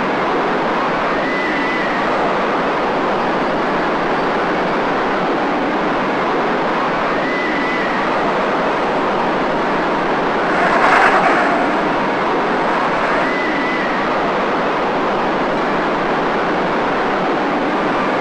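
Steady rushing noise, with a louder swell about eleven seconds in and a faint short high tone roughly every six seconds.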